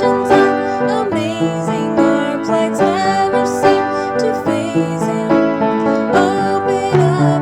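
Slow contemporary Christian song: a woman singing with vibrato over piano accompaniment.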